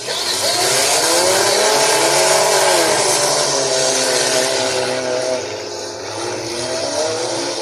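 Several demolition derby cars' engines revving hard together as the field is sent away, their pitches rising and falling over one another above a loud wash of noise. The revving eases a little past the middle.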